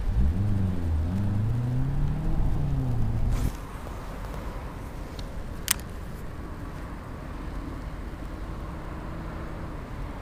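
A car engine driven hard, its pitch rising and falling, until it drops away about three and a half seconds in. After that a low steady hum remains, with one sharp click near the middle.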